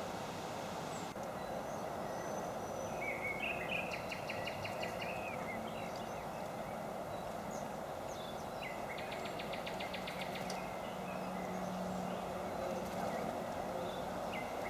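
Wild birds calling: a few short chirps and two rapid rattling trills, about three seconds in and again about nine to twelve seconds in, over a steady hiss.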